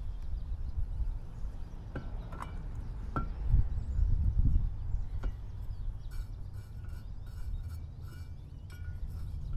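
Light metallic clinks and scrapes of propeller hardware being fitted onto an outboard's propeller shaft: a few separate clinks, then a quicker run of short scrapes in the second half, over a steady low rumble.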